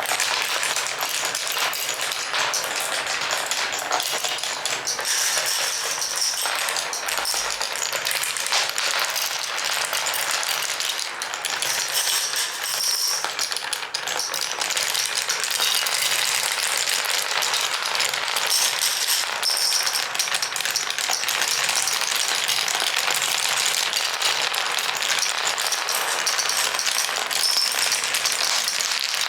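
Glass marbles rolling and clicking down a marble run, many at once, making a continuous dense rattle of small clicks.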